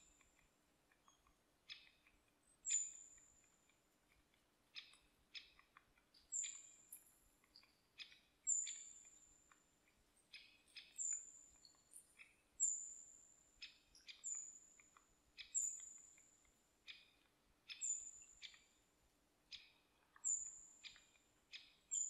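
Faint small birds calling: a thin, very high note, falling slightly, repeated every one to two seconds, with short sharp ticks in between.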